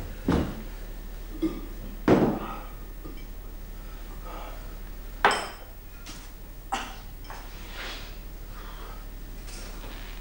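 Tableware and bottles knocked and set down on a table: about five separate knocks and clinks, the loudest about two seconds in and just after five seconds, over a steady low mains hum.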